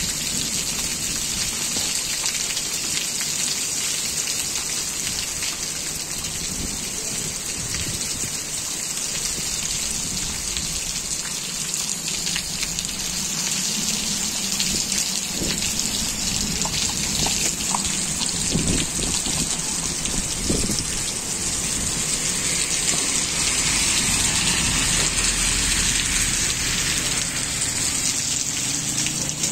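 Heavy rain pouring onto a waterlogged street and its puddles: a steady hiss of drops splashing on standing water, getting a little heavier near the end.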